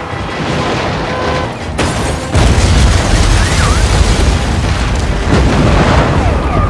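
Film disaster sound effects: dense, continuous rumbling and booming of large-scale destruction, jumping sharply louder about two and a half seconds in.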